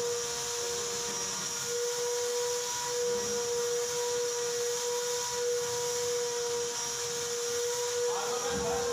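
Steady machine hum with one constant mid-pitched tone over a high hiss, from something running in the workshop; a short burst of other sound comes in near the end.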